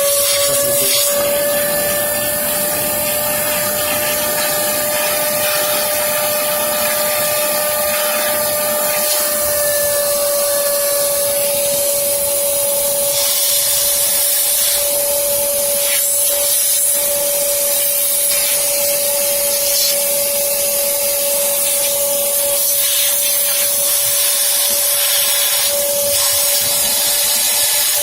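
Shop vacuum running steadily with a constant whine, used to blow or suck flushed water out of a car's air-conditioning evaporator.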